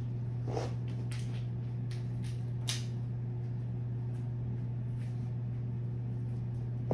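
Steady low electrical or fan hum in a small room, with a few faint brief rustles and clicks in the first three seconds.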